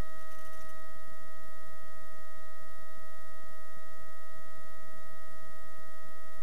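A steady electronic tone held at one pitch, with fainter overtones above it and no break or change.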